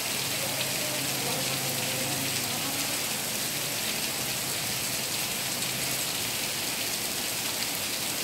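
Heavy rain pouring down steadily, a dense, even hiss of drops falling on pool water and wet paving.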